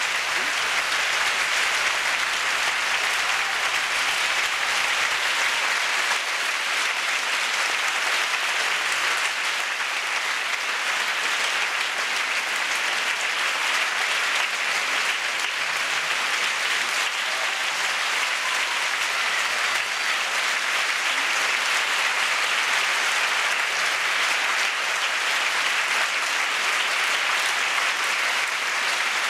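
Large theatre audience applauding steadily: dense, even clapping that neither swells nor fades.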